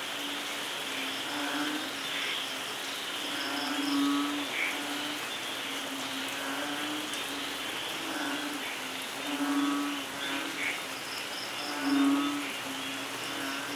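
Steady rainfall with frogs calling over it, low croaks repeating every second or two and a few louder ones, and a high pulsing insect trill now and then.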